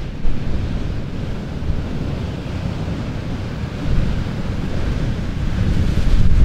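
Ocean surf washing in, with wind buffeting the microphone. The rushing of water grows louder near the end.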